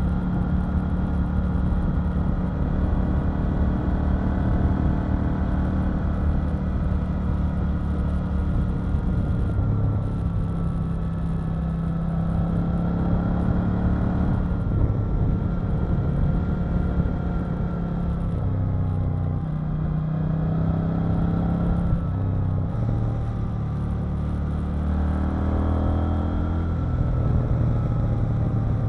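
KTM 890 Duke R's parallel-twin engine running under way on a ride, heard from on board. Its pitch shifts in steps several times and climbs again near the end.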